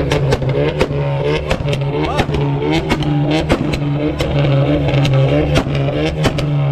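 Car engine held at steady revs on a flame-spitting exhaust tune, with sharp exhaust pops and bangs firing unevenly, several a second, over the engine's steady drone.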